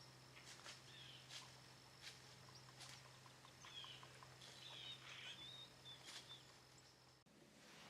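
Faint woodland ambience: scattered light clicks and rustles, with a few short bird chirps in the middle.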